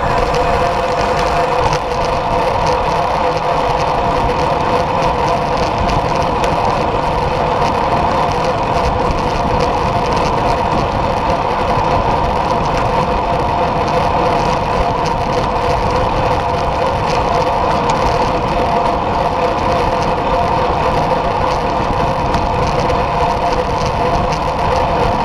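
Steady rush of wind and road noise on a bike-mounted action camera riding at speed, with a constant hum and no change in level.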